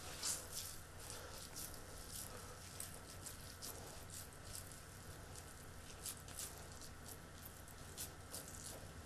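Faint, irregular soft squishing and small clicks of a wet cauliflower and gram-flour mix being squeezed and pressed into patties by hand in a stainless steel bowl.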